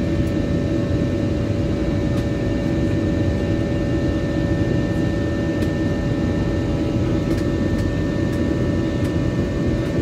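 Cabin noise inside an Airbus A321 in its climb after takeoff: the jet engines and the rushing air make a steady, loud rumble, with a few constant whining tones on top.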